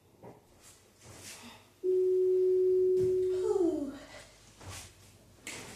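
A single steady beep-like tone held for about a second and a half, then sliding down in pitch and fading. Heavy breaths are around it.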